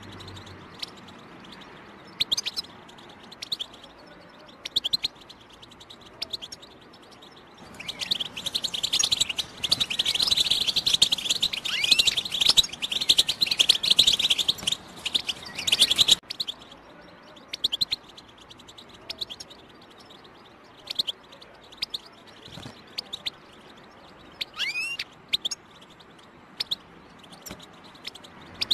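European goldfinch calling: scattered short chirps, then a loud, dense run of rapid twittering chatter, the kind goldfinch keepers call batbata, from about eight seconds in for some eight seconds, followed by more single chirps.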